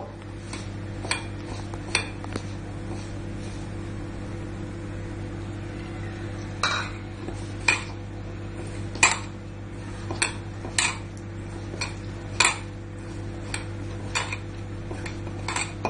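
Stiff dough being kneaded by hand in a steel mixing bowl: irregular metallic clinks and knocks as hand and bangles strike the bowl, more frequent in the second half, over a steady low hum.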